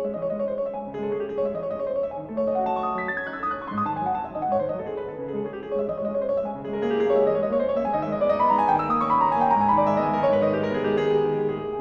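Background piano music, with flowing runs of notes that grow louder about seven seconds in.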